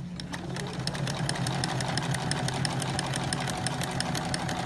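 Household sewing machine fitted with an overlock presser foot starting up about half a second in, its pitch rising as it speeds up. It then runs at a moderate, steady speed with a rapid, even ticking of needle strokes as it stitches and trims the edge of denim.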